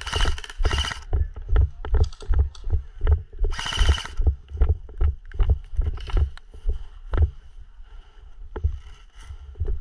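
Footsteps of the player carrying the camera, a steady walking rhythm of about two dull thuds a second, with gear and clothing rustling briefly near the start and again about four seconds in.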